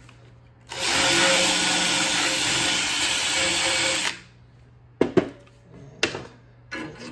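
Flux-core MIG welder laying a weld: a steady, loud hiss that starts abruptly and stops after about three and a half seconds. Two sharp knocks follow near the end.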